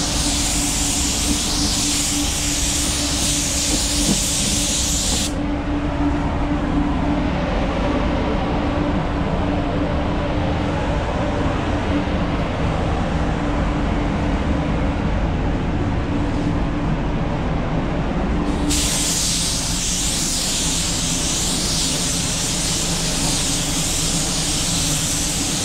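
Gravity-feed air spray gun hissing as it sprays clear coat, cutting off about five seconds in and starting again about three-quarters of the way through. Underneath runs the steady hum of the paint booth's ventilation.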